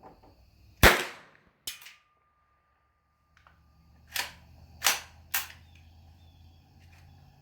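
Romanian Draco 9mm pistol firing with a muzzle brake fitted: a loud shot about a second in, a weaker report just after, then after a pause three more shots about half a second apart.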